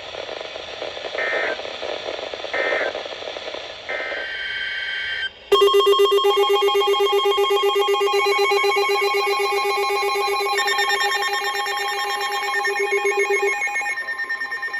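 Emergency Alert System signalling on a broadcast: three short buzzy data bursts (the SAME header), then, about five and a half seconds in, a loud steady alert tone sets in abruptly, several pitches at once with a fast flutter. Some of the pitches drop out near the end.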